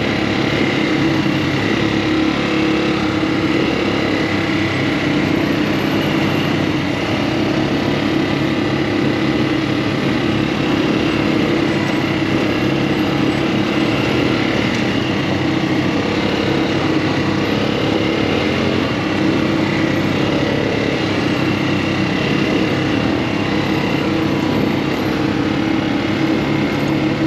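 Off-road buggy's small engine running steadily at a nearly constant pitch.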